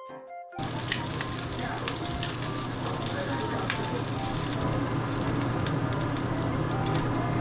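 A brief bit of music cuts off about half a second in, giving way to a steady sizzle and crackle of hot oil frying fish, with scattered light clicks from tongs and a spatula.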